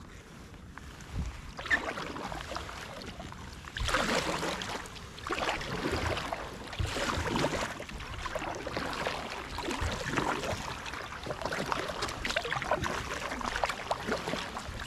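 Double-bladed kayak paddle strokes on calm water, alternating sides: swishing splashes and dripping about once a second. A quieter start with a single knock just under two seconds in; the steady strokes begin about four seconds in.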